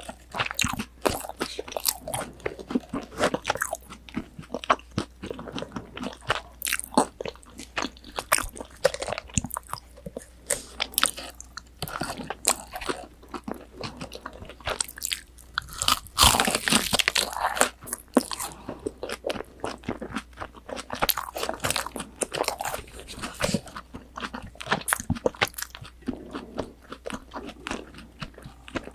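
Close-miked crunching and chewing of tonkatsu, a breaded deep-fried pork cutlet: irregular crisp bites and crackles of the fried crust, with a louder run of crunching about sixteen seconds in.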